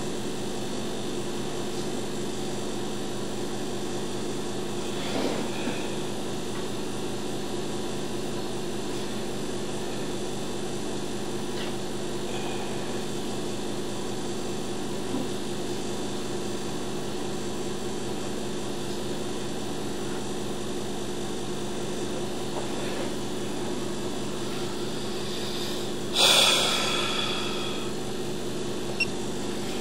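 A steady mechanical hum with no change in pitch. About 26 seconds in, a short, louder rush of noise fades away over about a second, and a faint click follows near the end.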